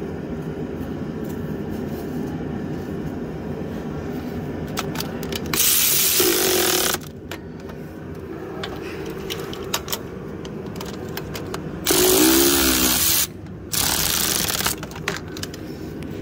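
A power tool spins cylinder head bolts into the engine block in three short bursts, each about a second long: one about five and a half seconds in, then two close together near the end. Between the bursts there are light clicks of the tool on the bolts over a low steady hum.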